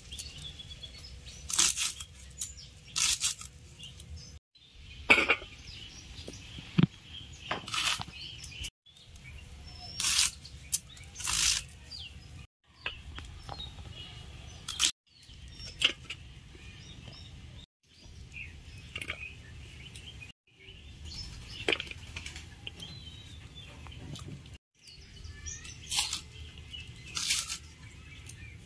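Red onions being cut with a large knife, a dozen or so sharp, irregular crunches, with birds chirping in the background.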